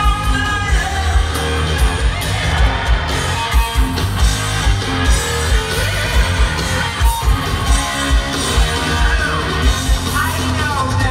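Live rock band playing loud: distorted electric guitar through Marshall amps, drums with a steady kick-drum beat, and a male lead singer singing and yelling, heard from within the audience.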